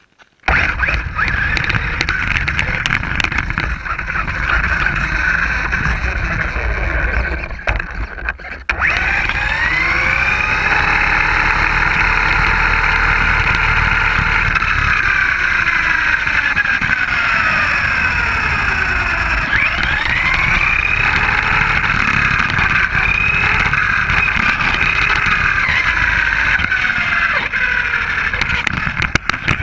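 Traxxas Slash RC truck driving, its motor whine gliding up and down in pitch over a steady rush of noise. The sound cuts in about half a second in and drops out briefly about eight seconds in.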